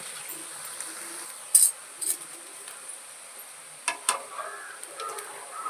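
Battered potato fritters sizzling in hot oil, with a few sharp clinks of a metal spoon against the pan. The loudest clink comes about a second and a half in.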